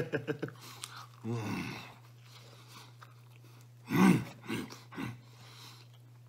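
A man chewing a mouthful of pizza crust close to the microphone, with a short voiced hum about a second in and a louder one at about four seconds, over a steady low hum.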